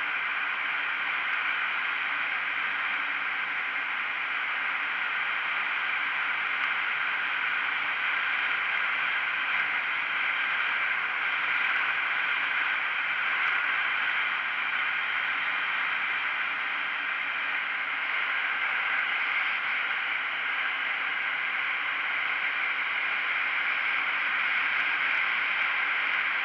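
Steady rush of wind and road noise from a KTM Duke 125 motorcycle cruising at an even speed, with its single-cylinder engine running faintly underneath at steady revs.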